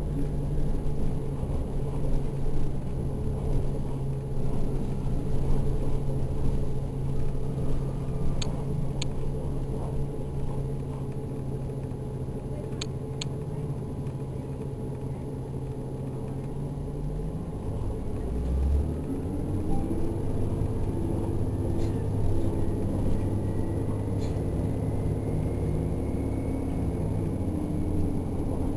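Inside an Orion VII NG hybrid bus under way: a steady drivetrain hum for the first half. Then comes a low thump, after which the electric drive's whine climbs in steps as the bus picks up speed. A few sharp clicks and rattles from the cabin are heard in the first half.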